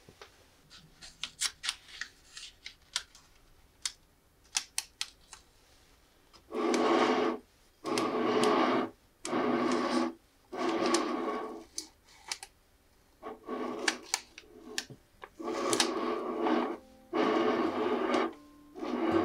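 A clear plastic cake-collar film is peeled and unwound from a cheesecake. First come scattered light crackles of the film. From about a third of the way in come about eight loud scraping rubs of roughly a second each, as the plate is turned on the wooden table in short pushes.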